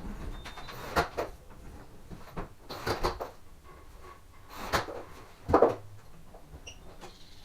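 Door lock hardware being worked: a string of sharp metal clunks and clicks from a door's handle and multipoint lock mechanism while a new gearbox is fitted. The loudest clunk comes a little past halfway.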